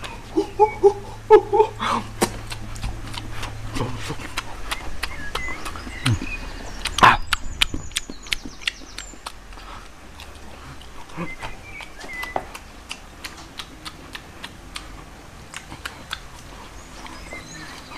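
Irregular clicks and knocks close to the microphone, the loudest about seven seconds in, with birds chirping in the background and a few short vocal sounds near the start.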